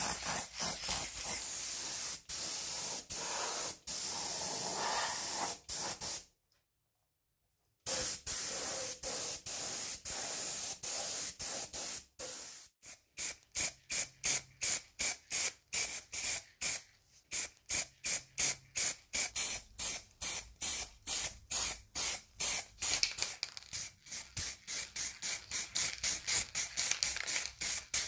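Paint being sprayed onto metal parts: a steady hiss for several seconds, a sudden cut, then a run of short spray bursts at about two to three a second.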